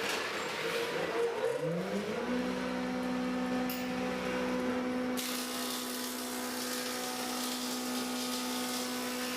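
Thickness planer's electric motor and cutter head spinning up, the hum rising in pitch over about the first two seconds, then running steadily at speed. About five seconds in, a hiss joins the hum.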